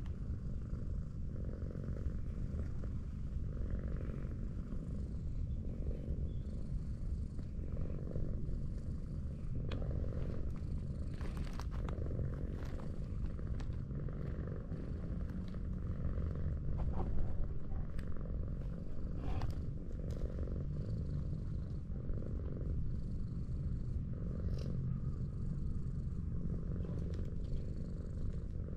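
Tortoiseshell cat purring steadily while being stroked on the head and chin, the purr swelling roughly every two seconds. A few soft clicks are heard partway through.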